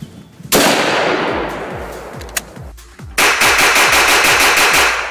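A single bolt-action rifle shot about half a second in, its echo fading over about two seconds. About three seconds in comes a handgun fired in rapid fire, the shots running together for nearly two seconds. Background music with a steady low beat plays throughout.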